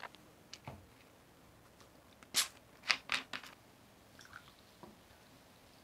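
A few light clicks of glassware being handled. About two seconds in come four short hissing spurts, as the cap of a bottle of carbonated live dongdongju is loosened and gas escapes. Faint pouring follows.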